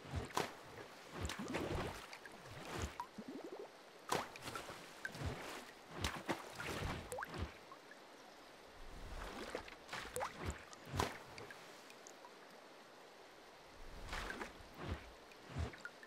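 Quiet water sound effect: irregular splashes, drips and gurgling plops, coming every second or so with a few quieter pauses.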